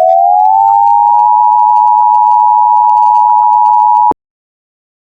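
A loud two-tone electronic alert signal, the Emergency Alert System attention tone, slides up in pitch from low and warped to its normal pitch, then holds steady. It cuts off abruptly about four seconds in, leaving dead silence as the broadcast terminates.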